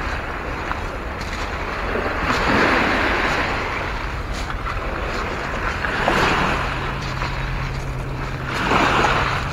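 Small lake waves washing onto a pebble and ice shoreline, swelling and easing about every three seconds, with wind noise on the microphone. A steady low hum joins about two-thirds of the way in.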